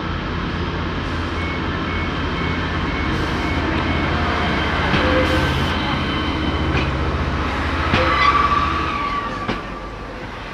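Class 144 Pacer diesel multiple unit's underfloor diesel engines running under power as it pulls away and passes close by, a steady low drone that grows louder. About eight seconds in comes a brief high wheel squeal with a few knocks from the wheels, then the drone fades as the train moves off.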